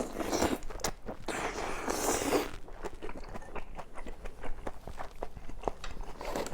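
A person biting into and chewing a mouthful of braised kimchi and pork close to the microphone: two noisy bites in the first two and a half seconds, then chewing with many small wet clicks.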